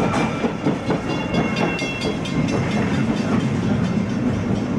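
Vintage Melbourne W2-class tram running along its track, its wheels clattering over the rails with a steady rumble. A faint high whine sounds briefly about a second in.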